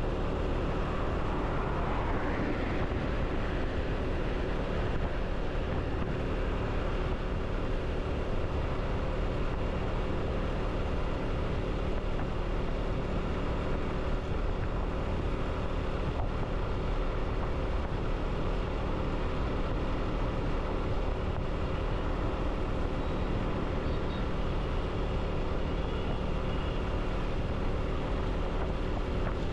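Vehicle under way at a steady pace on the road: the engine runs evenly with a few faint steady tones, over a constant wash of road and wind noise.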